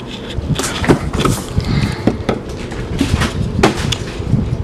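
Plastic cleaning-product bottles being handled and set down on a wooden tabletop: a string of irregular knocks and clatters with low handling rumble.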